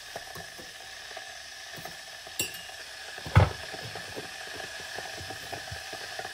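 A spoon stirring coffee in a stainless steel mug, with many light clinks against the side, a sharper metallic clink that rings briefly about two and a half seconds in, and a thump about a second later. A steady hiss runs underneath, from a glass electric kettle heating water.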